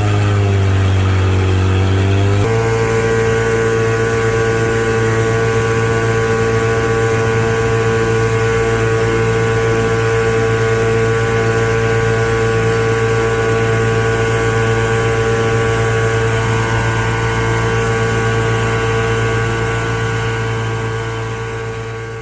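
Small boat engine running at a steady speed, its pitch dropping slightly in the first couple of seconds and then holding even. The sound fades away near the end.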